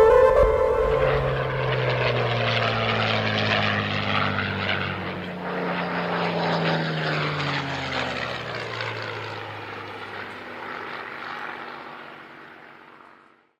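Propeller airplane flying past, a steady engine drone whose pitch slowly falls as it goes by, fading away to nothing near the end. It follows music that cuts off under a second in.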